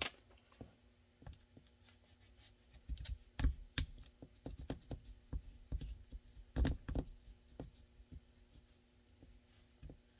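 Scattered small clicks, taps and a few dull knocks of hands handling a taped pistol mold and its blocking on a cutting mat, over a faint steady hum.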